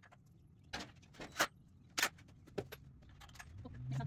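A few sharp, irregular clicks and knocks from hands-on work on a wooden frame covered in chicken wire. A low hum swells in near the end.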